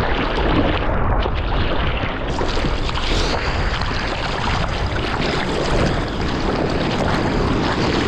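Seawater splashing and rushing over a surfboard's deck as it is paddled through choppy water, with wind and water buffeting the board-mounted camera's microphone in a steady low rumble.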